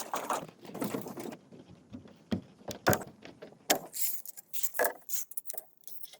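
Irregular clattering: sharp knocks and clicks with rustling between them, as of hard objects being handled and set down, with the loudest strikes about three and four seconds in.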